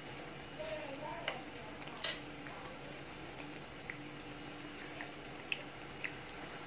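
Beignet dough rounds frying in hot oil in a frying pan, a steady low sizzle, with one sharp metallic clink about two seconds in and a few light ticks after it.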